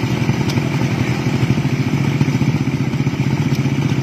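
Kawasaki Ninja motorcycle engine of a homemade light aircraft running steadily at a constant speed, with no revving up or down.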